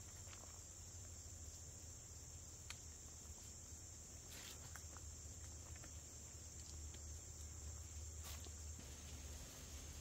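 Faint outdoor ambience: a steady high-pitched insect drone over a low rumble, with a few scattered light clicks.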